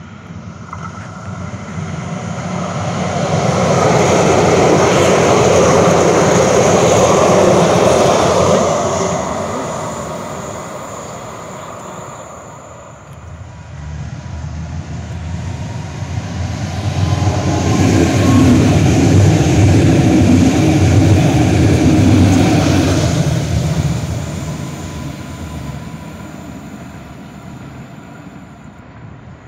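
Trains passing by: two pass-bys, each swelling up and fading away. The first peaks about five to eight seconds in, and the second, deeper one peaks about seventeen to twenty-three seconds in.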